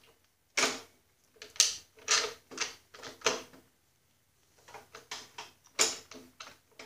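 Irregular metal clicks and clunks, about a dozen with a short pause in the middle, as the chain case and its hex shaft are worked by hand into the frame of a Snapper rear-engine rider.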